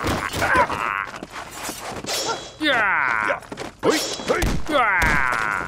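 Fight-scene sound effects: a rapid run of whacks and thuds from blows landing, with two short strained cries, the first about halfway through and the second near the end.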